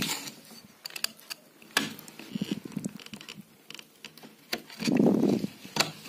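Scattered small clicks and scrapes of a blade working at the metal legs of a tactile push-button switch on a circuit board, with a louder, duller sound about five seconds in.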